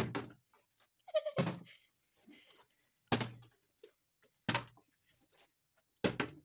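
Partly filled plastic water bottle being flipped and landing on a marble countertop again and again: five solid thuds, about one every second and a half.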